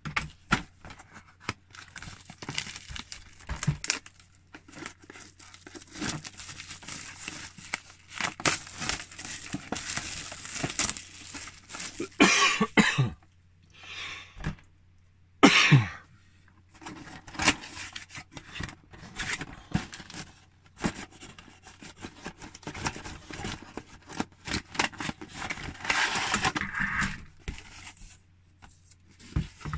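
Plastic wrapping being torn off a cardboard box and crinkled, with scraping and handling as the lid is opened, in irregular rustles and crackles, with two louder bursts about halfway through.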